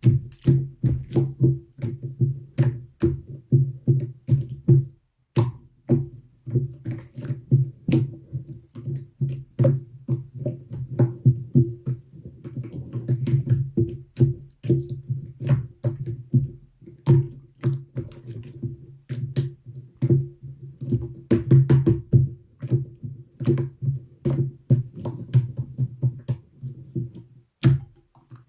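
Slime being squeezed and pressed by hand, making dense, irregular sticky clicks and pops, over a steady low hum.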